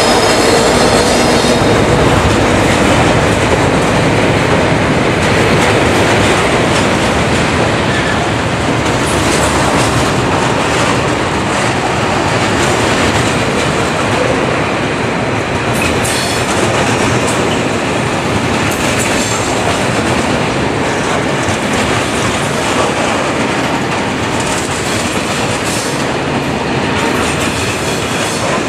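A long rake of bogie tank wagons rolling steadily past, their wheels clattering on the track.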